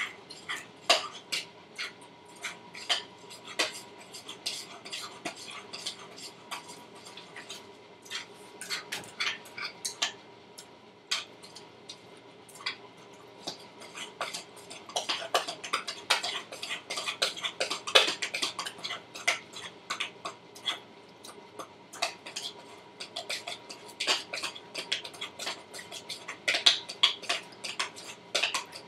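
Utensil clinking and tapping against a mixing bowl as flour is stirred into a creamed butter, sugar and egg batter, in irregular knocks throughout.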